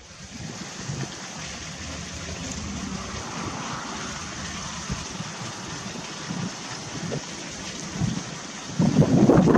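Wind buffeting the camera microphone: a steady hiss and rumble that gets much louder near the end.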